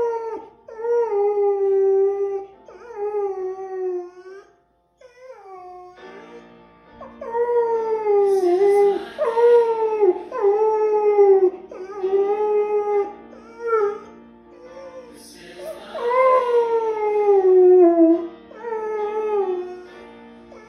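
Golden retriever singing along to Christian praise and worship music: a series of long, pitched notes, each held a second or two and often sliding down at the end, over the music playing underneath.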